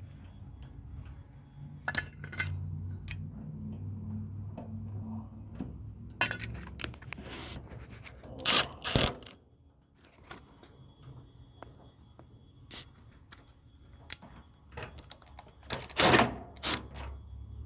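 Metal parts and hand tools being handled: clinks, knocks and rattles, with two louder spells of clattering, one about halfway through and one near the end. A low hum sits under the first half and stops about halfway through.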